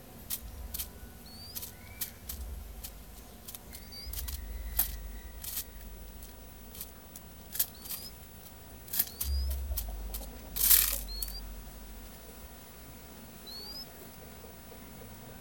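Ground dove pecking at cornmeal grits and bread on newspaper: irregular sharp taps of the beak on the paper. A brief rustle about ten and a half seconds in is the loudest sound, and a few faint short rising chirps are heard now and then.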